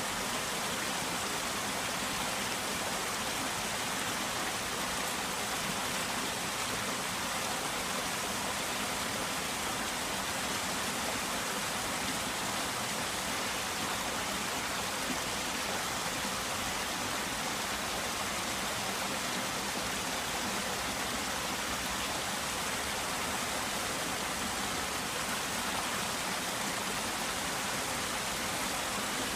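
A Japanese garden's waterfall: water falling and splashing in a steady, unchanging rush.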